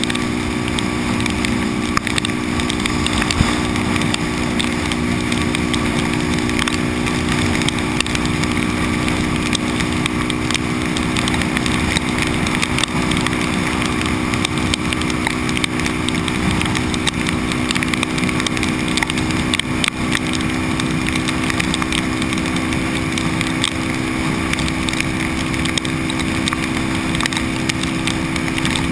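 Supermoto motorcycle cruising steadily at highway speed in the rain: an even engine note under wind rush and wet-road noise.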